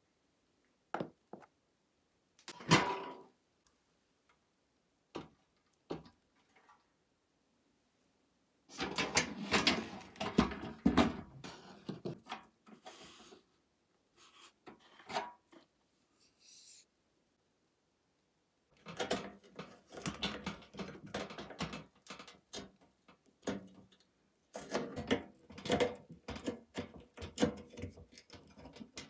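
Hands handling tools and a heavy sheet-metal toy truck: scattered clicks and knocks at first, then stretches of dense clatter and scraping, about a third of the way in and again through the last third, separated by silences.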